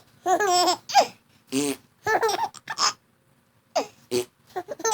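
Five-month-old baby laughing in short bursts of giggles, pausing for under a second about three seconds in before laughing again.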